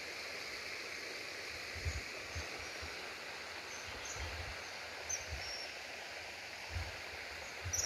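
Outdoor ambience at a still pool: a steady even hiss, with a few faint high bird chirps and several short low thumps of wind or handling on the microphone.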